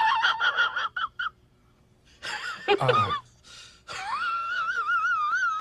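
High-pitched wheezing laugh sound effect: quick breathy pulses, then a falling squeal, then a long warbling wheeze.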